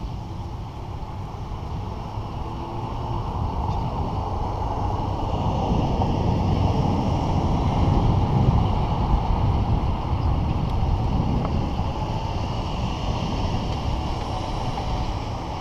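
Wind buffeting the camera's microphone over the low rumble of bicycle tyres on a concrete sidewalk while riding. The noise grows louder toward the middle, then eases.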